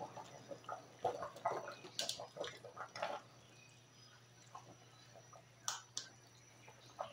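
Metal ladle stirring and scooping boiling soup in a stainless steel pot: irregular clinks and liquid splashes for about three seconds. After that the pot is quieter, with a couple of sharp clinks near the end, over a faint steady hum.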